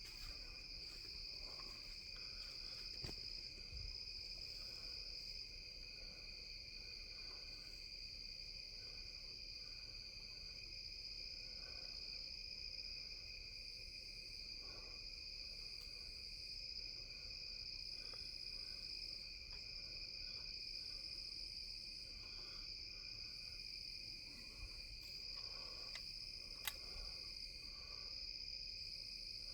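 Night insect chorus: a steady, unbroken high-pitched shrill from crickets and katydids, sitting at two pitches. A single sharp click comes near the end.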